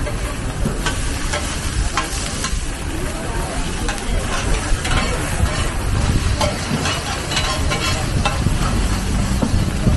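Two metal spatulas scraping and clinking against a large wok as egg is stir-fried, with oil sizzling. Short scrapes come every second or so over a steady low rumble.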